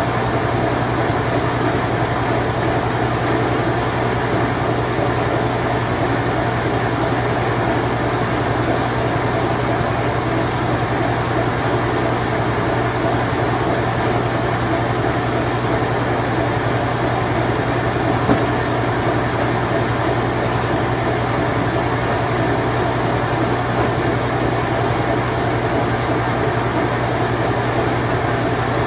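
Vintage Whirlpool Imperial Clean Touch top-load washing machine running its spin cycle: a steady motor hum with an even whirring noise. There is one brief tick about 18 seconds in.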